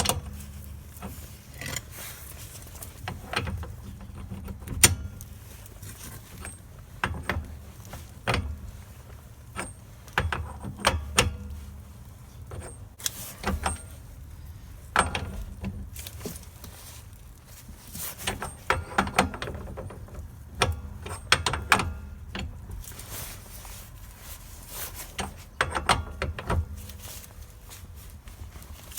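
Metal hand tools clicking and clinking in irregular bursts as the rear hub nut is tightened by hand, drawing the new wheel bearing on along the stub axle threads.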